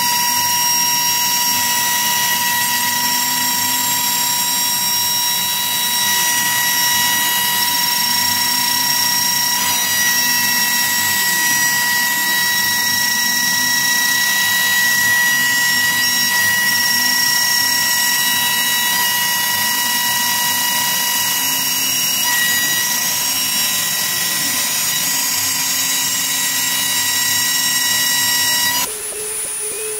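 CNC router with a trim-router spindle milling plywood: the spindle motor gives a steady high whine while the bit cuts the wood. Under it a lower motor hum rises and falls in pitch again and again as the machine moves along the outline. The sound changes abruptly and gets quieter just before the end.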